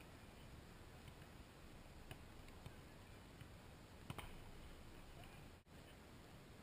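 Near silence broken by a few short slaps of hands striking a volleyball across the court: a light one about two seconds in, then a sharper pair just after four seconds.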